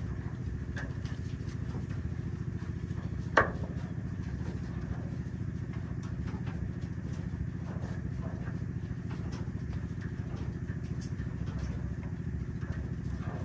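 Steady low hum of a running motor, with one sharp click about three and a half seconds in.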